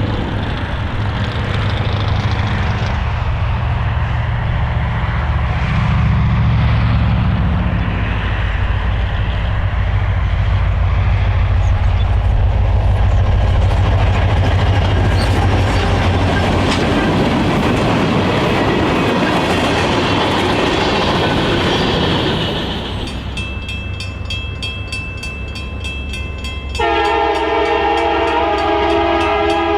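Louisville & Indiana freight train with six-axle diesel locomotives passing, a steady low engine hum over rumbling wheel and rail noise. About three seconds before the end, a multi-note air horn sounds a steady chord.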